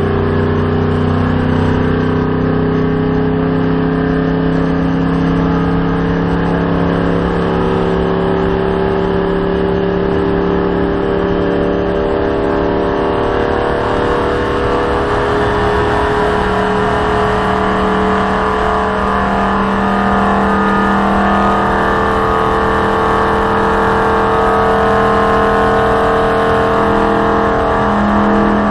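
NASCAR stock car's V8 engine running flat out, heard from inside the cockpit: a steady, loud drone whose pitch climbs slowly over the second half as the car gains speed.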